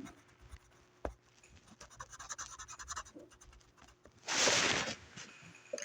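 Scratchy strokes of a drawing tool on paper as an area of a drawing is colored in, with a click about a second in and a louder rush of noise lasting under a second a little past four seconds.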